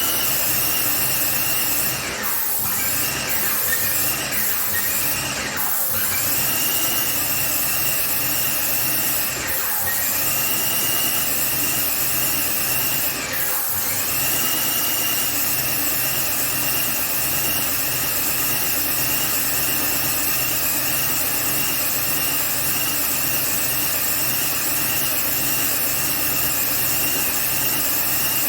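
Airless paint sprayer running while spraying emulsion: a steady, high-pitched whine over a hiss, dipping briefly in pitch a few times in the first half then holding steady.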